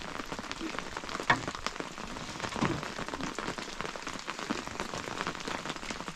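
Rain pattering steadily as a dense scatter of small drop hits, with one sharp knock about a second in.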